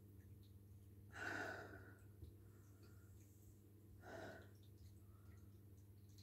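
Two faint breaths from a woman trying to bring on a sneeze, a longer one about a second in and a shorter one about four seconds in, over a low steady hum.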